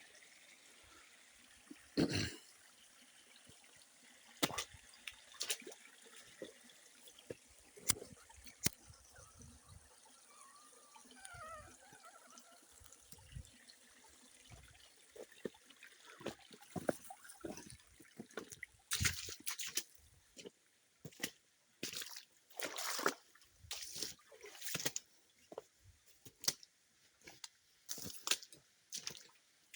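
Spring water trickling and dripping, with scattered sharp knocks. About halfway through, a quick run of short splashing bursts takes over.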